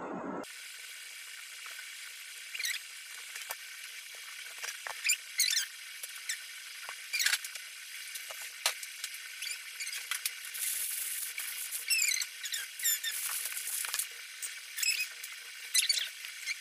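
Many short, rapid, high-pitched chirps and squeaks over a thin hiss.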